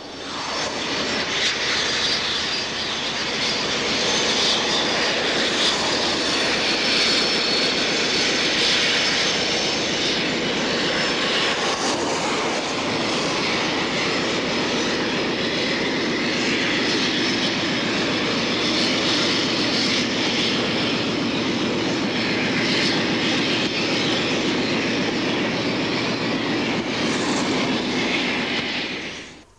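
Diesel freight train running by, a steady loud engine drone with rolling noise. It cuts off suddenly near the end.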